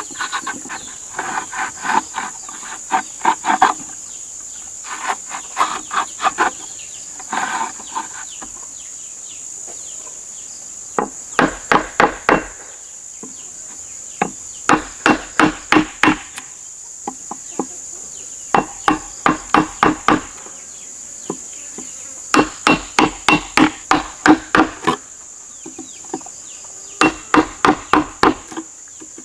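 A steel hammer striking a wood chisel as it chops a slot into a wooden plank: lighter taps at first, then groups of five or so sharp blows about three a second with short pauses between. A steady high insect drone runs underneath.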